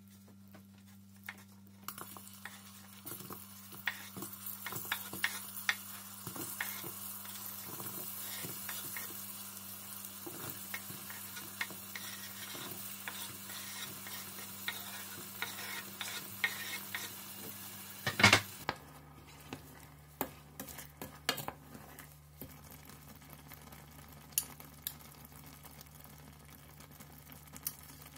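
Butter-sugar caramel with chopped apples sizzling in a stainless steel saucepan, stirred with a wooden spoon that clicks against the pan now and then. One loud knock about eighteen seconds in; after it the sizzle is quieter, with only occasional clicks.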